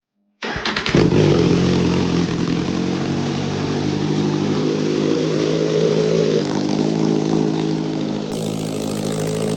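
Kawasaki Z1000 inline-four engine cranked on the starter, catching about a second in, then idling steadily.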